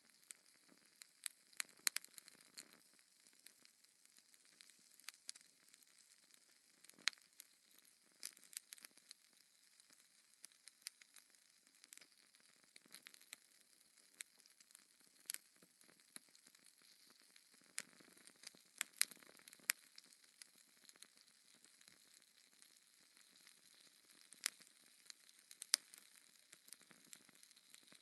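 Wood fire in a fireplace crackling, with irregular sharp pops and snaps over a faint hiss.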